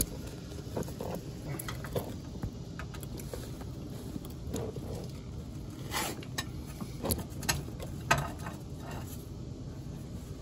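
Irregular light clicks and knocks of a hand tool with a 10 mm hex bit being fitted to and worked on a rear differential drain plug to crack it loose.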